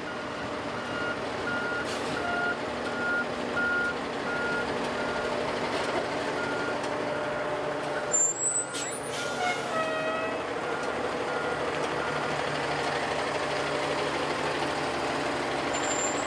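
Heavy rescue fire truck backing up: its reversing alarm beeps over and over at one steady pitch over the running diesel engine. There is a short burst of noise a little past halfway through.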